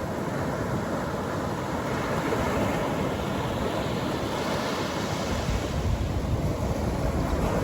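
Atlantic Ocean surf breaking and washing up a beach: a continuous rushing hiss that swells about halfway through, with a deeper rumble building near the end.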